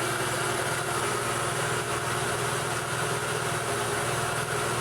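ZAZ Tavria's MeMZ-2471 1.1-litre fuel-injected four-cylinder engine idling evenly, with a light clatter of the valves and no knock, the knock it was repaired for being gone.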